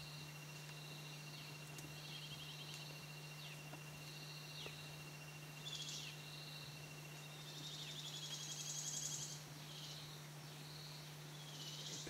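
Evening forest insect chorus: a steady high trill and repeated chirping pulses, with a few short falling whistles. A louder pulsing rasp swells about eight seconds in and fades by about ten, over a steady low hum.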